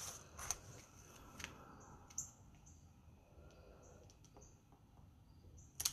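Faint rustling and light taps of cardstock pieces being handled and set down on a wooden tabletop, a few soft clicks spread out, with a sharper tap near the end.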